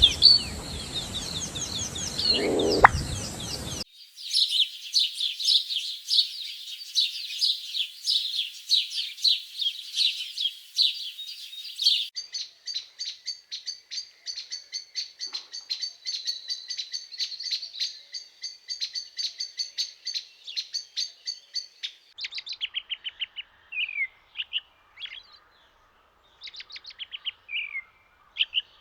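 Small birds chirping and trilling in rapid high-pitched notes. The sound changes abruptly a few times, from a dense fast chatter to rapid repeated notes, then to sparser chirps with short pauses.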